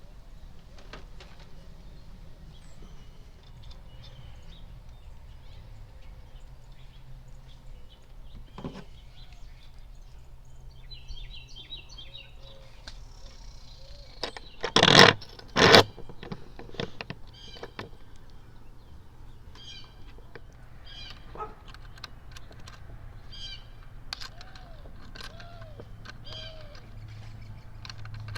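Scattered small clicks and knocks of hands-on work, with two loud sharp bursts a little past halfway. Birds chirp faintly in the background, and a steady low hum runs underneath.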